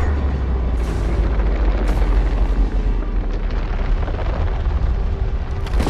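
Film sound effects of large explosions and fire: a continuous deep rumble with a few sharper blasts on top, and music beneath.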